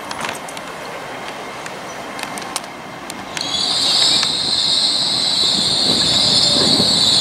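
GWR Hitachi Intercity Express Train running slowly into a platform: a steady high-pitched brake squeal sets in about three and a half seconds in and holds, over the rising rumble of the approaching train. A few light clicks come before the squeal.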